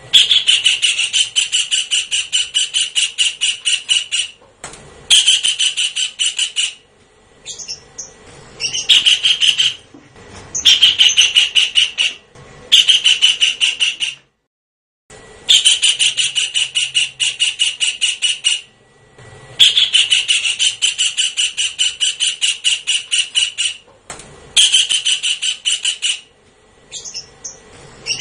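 A kingfisher calling in rapid runs of sharp, evenly repeated notes. The runs last one to four seconds, with short pauses between them.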